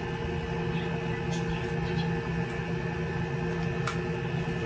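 Steady low room hum with a few constant tones, and a few faint ticks from the helmet being handled, about a second in and again near the end.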